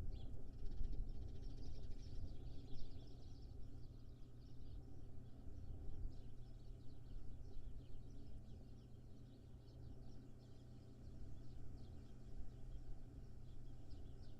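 Dense, continuous chatter of short high chirps from birds, over a steady low hum and rumble.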